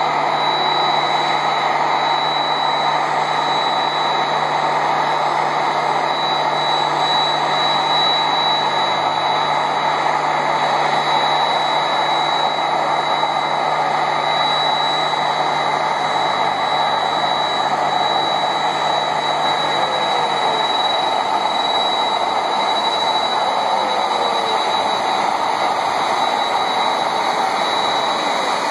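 Boeing 767 freighter's jet engines running at taxi power close by: a loud, steady rush with a high, even whine.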